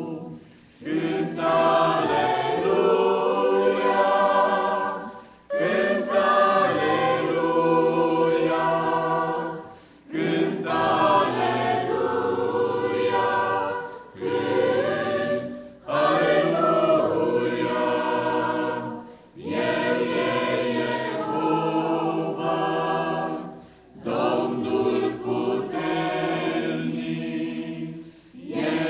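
Mixed choir of women's and men's voices singing a hymn in parts, in phrases of about four seconds with short breaks between them.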